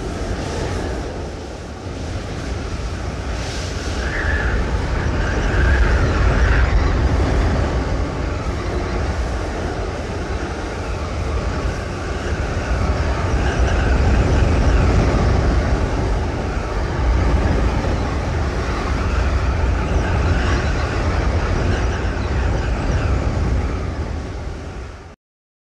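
Steady rushing, rumbling noise, heaviest in the bass, swelling and easing slightly before cutting off suddenly near the end: a rushing-wind flight sound effect.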